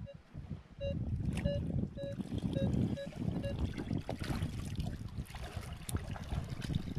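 Minelab Equinox metal detector giving a run of about seven short, mid-pitched beeps as the coil sweeps over a buried target reading 13–14. From about four seconds in, water sloshing and splashing as a long-handled sand scoop is pushed into the sandy bottom.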